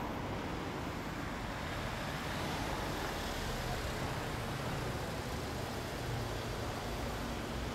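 Honda Monkey's Takegawa 107cc single-cylinder four-stroke engine idling steadily through an OVER Racing exhaust, a fast, even low exhaust pulse.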